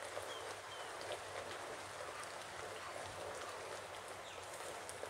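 Thick coconut-milk peanut sauce boiling hard in a wok, a steady bubbling with many small pops and spits, stirred with a wooden spatula. It is boiling vigorously enough to spit.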